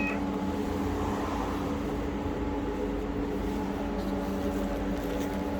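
Steady mechanical hum with a low rumble and a few fixed low tones, from a running motor or engine.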